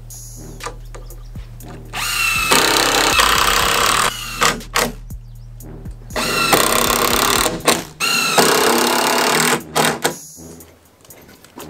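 Cordless drill driving screws into wooden framing studs in long runs, starting about two seconds in and again from about six seconds, its motor pitch shifting as each screw seats.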